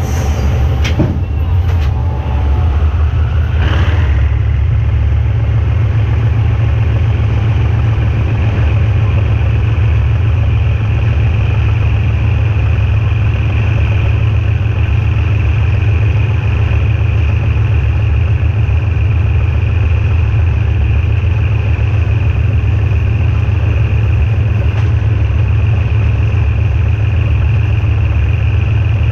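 GE diesel-electric shunting locomotive's engine running steadily with a low drone and a steady high whine, with a few knocks in the first few seconds.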